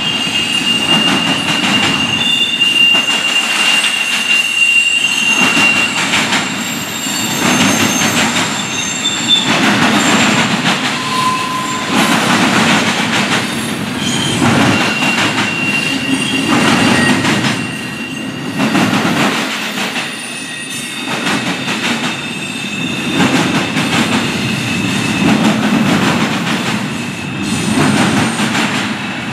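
CSX double-stack intermodal train's cars rolling past: a steady rumble and clatter of steel wheels on the rails, with high-pitched wheel squeal coming and going, longest near the start and again about halfway through.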